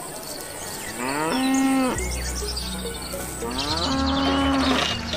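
Cow mooing twice, each call rising in pitch and then held steady for a moment.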